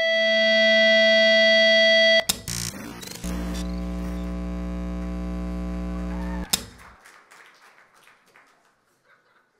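A steady electronic tone that cuts off abruptly into glitchy clicks. Then comes a low electrical buzz for about three seconds, ending in a sharp click, with crackles fading away after it: the sound of an audio-video signal dropping out.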